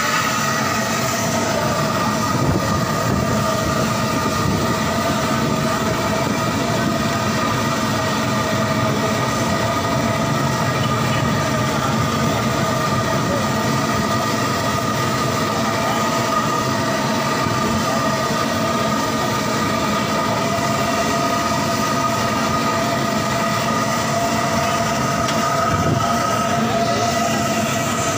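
Kebabs deep-frying in a karahi of hot oil: a continuous sizzle and crackle over a steady roar, with a steady whine running through it.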